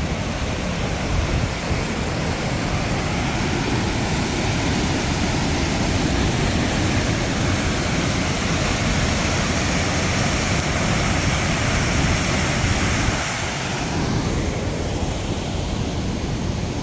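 Waterfall rushing: a loud, steady wash of falling water that eases slightly about thirteen seconds in.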